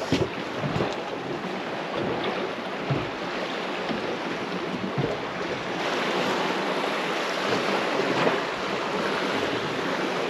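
Waves and wind on open water around a small fishing boat: a steady rushing noise with wind buffeting the microphone and a few light knocks.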